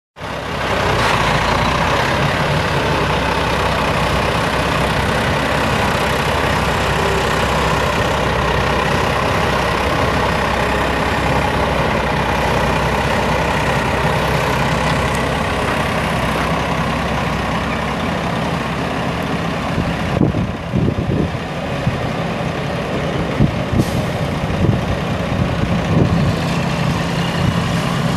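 Cummins M11 six-cylinder turbo diesel of a Freightliner FLS112 truck running steadily as the truck drives, with several short knocks and clatters in the last third.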